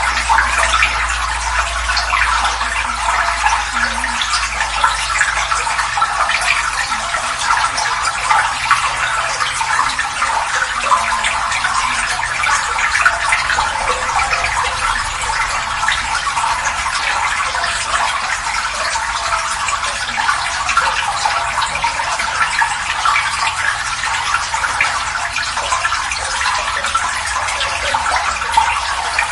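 Water pouring in a steady stream and splashing continuously, a dense splashing hiss with no letup.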